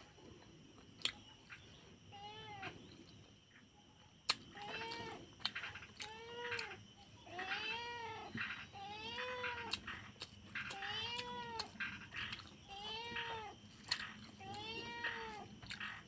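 A cat meowing over and over, each call a short rise and fall in pitch, sparse at first and then about one a second. A few sharp clicks stand out between the calls.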